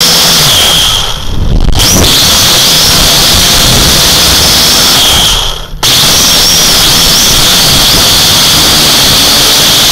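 Small drone's electric motors and propellers, heard through its onboard camera: a loud whining hiss whose pitch wavers. The sound dips briefly twice, about a second in and about five and a half seconds in.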